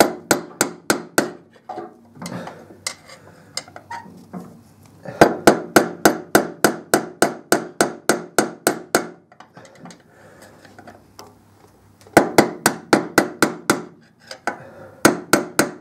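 Hammer tapping a long screwdriver used as a drift against the old top outer bearing race in a Kawasaki Z1000SX steering headstock, knocking out the pitted race: quick sharp taps, about five a second, in runs of a few seconds with short pauses between.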